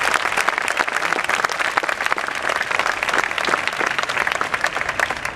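A large crowd applauding: dense, steady clapping from many hands.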